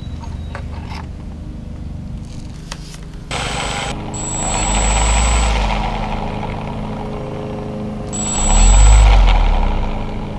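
Electric motor and propeller of an E-flite Valiant RC plane run up in bursts, starting suddenly about three seconds in and swelling twice, with a thin high whine while under power. A few light clicks come before it.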